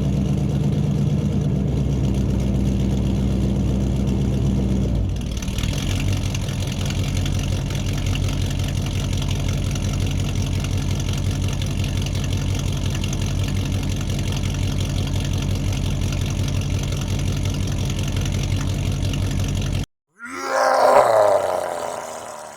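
Small engine running steadily, its note changing about five seconds in. It cuts off suddenly near the end and is followed by a short, loud sweeping sound that fades away.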